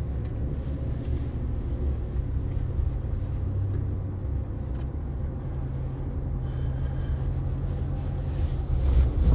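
Low, steady rumble of a car's cabin while riding, with a louder low bump near the end.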